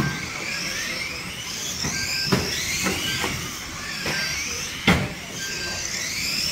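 Radio-controlled model stock cars racing on a carpet track, their motors whining and rising in pitch again and again as they accelerate out of the bends. A few sharp knocks cut in, the loudest about two and a half seconds in and near five seconds in.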